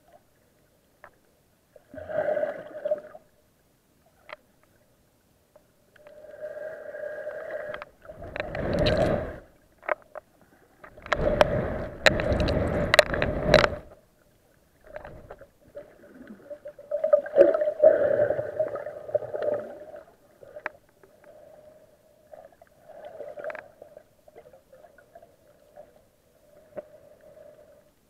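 Muffled underwater sound picked up by a camera held below the surface: irregular swishing and gurgling bursts of water moving around it as the snorkeler swims. The loudest bursts come near the middle.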